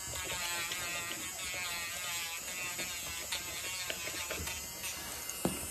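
Dremel rotary tool running as it grinds down a Newfoundland dog's nails, its whine wavering in pitch as the grinding head presses on the nail. There is a single knock near the end.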